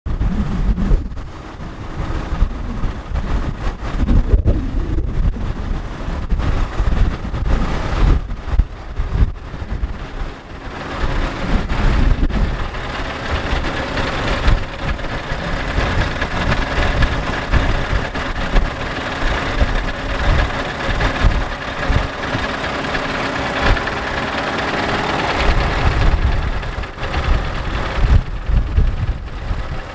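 Scania S520's V8 diesel engine idling steadily, with irregular low buffeting over it in the first ten seconds or so and again near the end.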